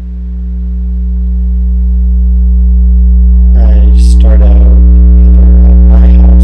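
A deep, steady electronic drone swells louder the whole time. From about halfway through, wavering voice-like sounds are layered over it.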